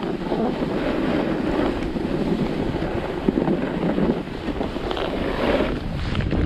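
Wind buffeting the camera's microphone at speed down a groomed ski run, over the hiss and scrape of sliding on packed snow, surging and easing unevenly.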